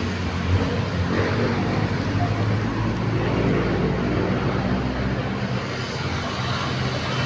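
Road traffic: vehicle engines running with a steady hum and road noise.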